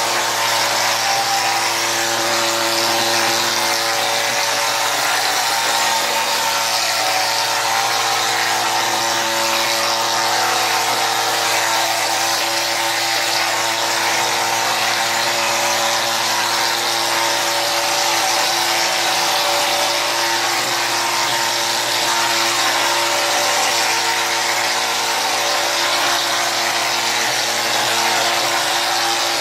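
Gypsum plaster being sprayed from a Powermix Alpha plastering machine: a steady hiss of compressed air and plaster at the spray gun over the machine's steady hum of motor and rotor-stator pump, without a break.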